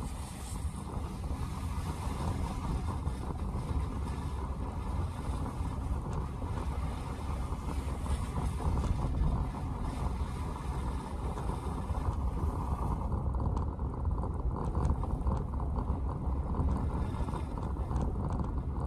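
Steady in-cabin road noise of a car driving on a snow-covered street, mostly a low rumble of tyres and engine, with a few faint clicks in the second half.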